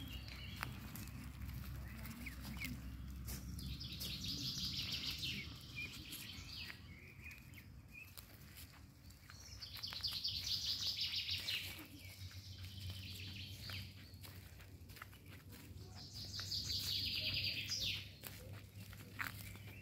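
A songbird singing a rapid trilled phrase of about two seconds, repeated three times some six seconds apart, over footsteps on dry leaf litter.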